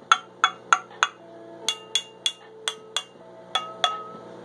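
A Chameleon Glass bong being tapped, about a dozen sharp taps at an uneven pace, each giving a short glassy ring. The glass is being tapped to judge how thick it is.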